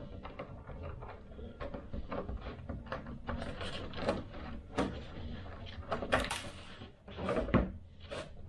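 Irregular clicks, taps and rustles of small parts being handled on a workbench, with a few sharper knocks.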